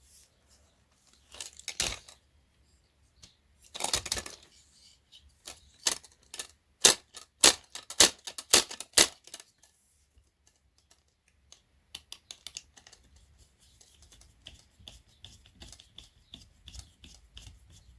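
Sharp clicks and knocks of hard plastic and small metal parts being handled while a mini stereo's CD mechanism is taken apart by hand. About halfway through comes a run of loud clicks, about two a second, followed by faint quick ticking.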